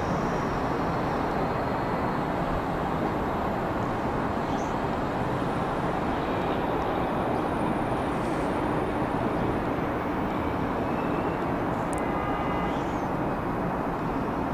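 SEPTA AEM-7 electric locomotive running slowly as it draws a commuter train into the station, a steady rushing noise that holds level throughout.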